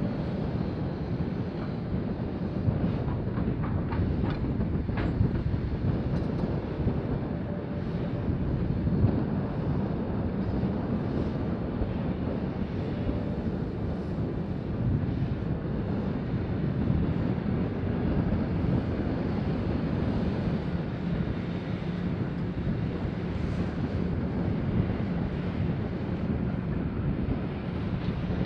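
Hitachi 870 mining excavator and Caterpillar 777 haul truck at work, the excavator loading the truck: a steady, low diesel rumble with a few short knocks about three to five seconds in.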